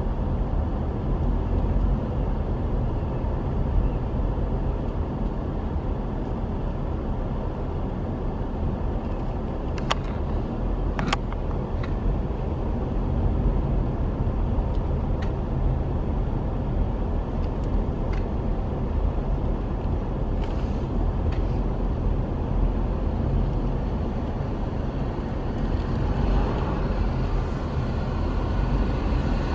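Car driving, a steady low rumble of engine and tyre noise, with two sharp clicks about ten and eleven seconds in.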